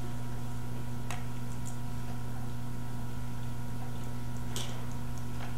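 Steady low electrical hum with room hiss, broken by two faint clicks, about a second in and again near the end.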